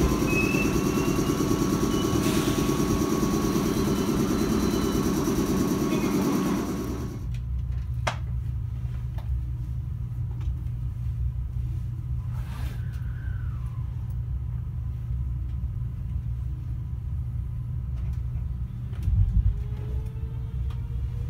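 Kintetsu 23000 series Ise-Shima Liner express train running along a station platform with a loud rumble. About seven seconds in this gives way to a low steady hum inside the passenger car. Near the end comes a thump, then the rising whine of the train's original Mitsubishi GTO VVVF inverter as it starts to accelerate.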